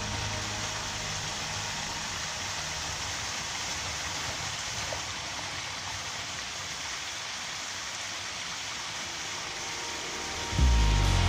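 Shallow stream water running steadily over a low stone step, a constant even hiss of flowing water. Music comes in near the end.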